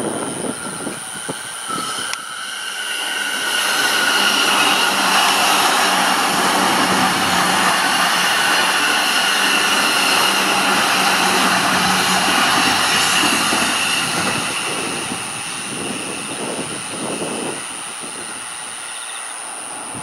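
JR East Joban Line electric train passing at speed. It builds about three seconds in, stays loud with a steady high whine for around ten seconds, then fades. Gusts of strong wind buffet the microphone before and after the pass.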